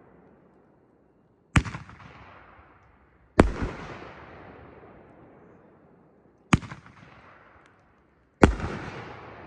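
Consumer firework artillery shells going off: four sharp bangs about two to three seconds apart, each followed by a long echoing rumble that fades away.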